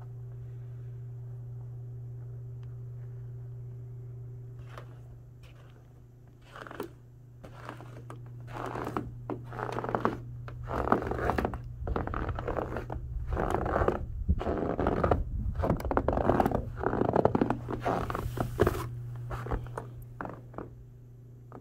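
Fresh powder snow crunching under feet and in a bare hand: an irregular run of crunches begins about six seconds in, is loudest in the middle, and fades near the end. A steady low hum runs underneath.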